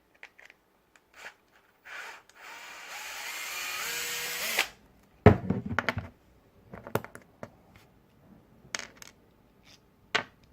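Electric screwdriver running for about two and a half seconds, its pitch stepping upward as it loosens a bolt on a 3D printer's belt idler. It is followed by a loud knock and a scatter of small clicks and taps from parts being handled.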